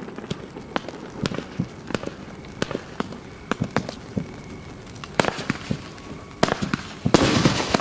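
Fireworks going off: a string of sharp, irregular bangs about one or two a second, then a dense crackling salvo near the end.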